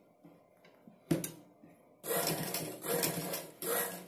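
A single click about a second in, then a household straight-stitch sewing machine stitching from about two seconds in, sewing the straight-stitch outline of a buttonhole.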